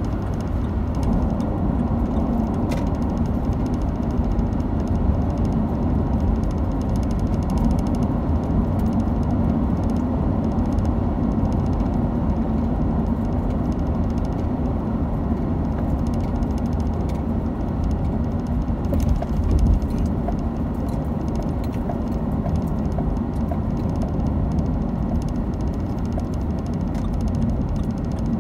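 Steady low rumble of a car driving at speed, tyre and engine noise heard from inside the cabin.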